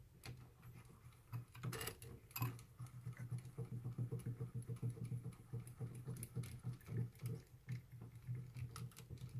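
Mini-lathe compound rest being cranked by its feed-screw handle, winding the top slide back: a steady run of light metallic clicks, several a second, with a couple of sharper taps about two seconds in.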